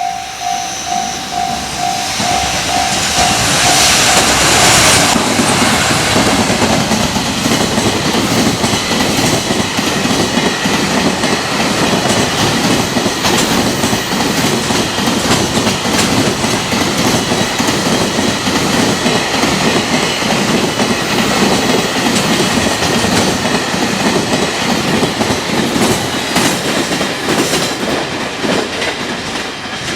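Freight train passing at speed over a level crossing. For the first few seconds the crossing warning bell dings about twice a second. The electric locomotive rushes past loudly about four seconds in, then a long run of wagons clatters over the rail joints, fading near the end.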